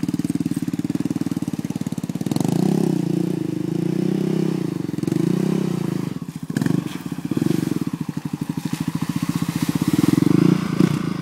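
Yamaha Raptor 660 quad's single-cylinder four-stroke engine running while ridden through mud, the throttle opened in repeated surges. It drops off briefly about six seconds in and is loudest near the end as the quad comes up close.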